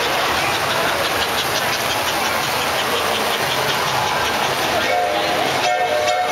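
S gauge model trains running around a layout: a steady rumbling clatter of wheels on track with rhythmic clicking. About five seconds in, a steady pitched toy-train whistle tone sounds over it, against hall crowd chatter.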